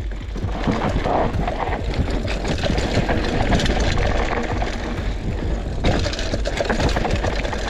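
Mountain bike riding down a dirt trail: a steady rumbling noise of tyres and bike on rough ground, dotted with many small rattles and clicks.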